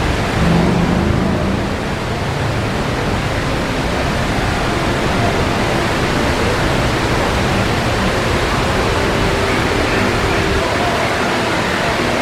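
Steady rushing of water falling from the Mirage volcano lagoon's waterfalls, with faint voices of a crowd about a second in.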